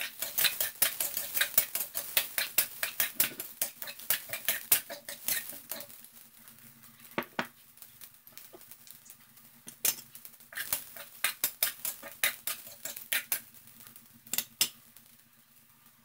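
Metal spatula scraping and clicking against a metal wok while onions and garlic are stirred in the pan: a quick run of strikes for the first six seconds, then scattered ones from about ten to fifteen seconds in. A low steady hum runs underneath.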